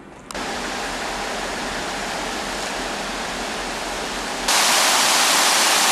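Water of the Gefion Fountain pouring down its stepped stone basins: a steady splashing rush that starts suddenly under a second in and becomes much louder about four and a half seconds in.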